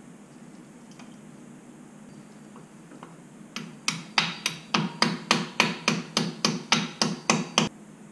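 A small hammer taps a steel retaining pin through a C7 Corvette's brake caliper and pads: about fifteen quick, sharp metallic taps, three or four a second, starting a few seconds in and stopping abruptly.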